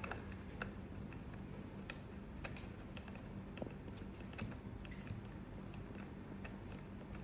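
Faint, irregular small clicks and ticks of plastic connector parts being handled and screwed together by hand, over a steady low hum.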